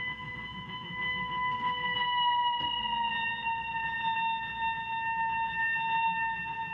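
Film score: one long, high sustained tone that slowly slides downward in pitch, over a low hum.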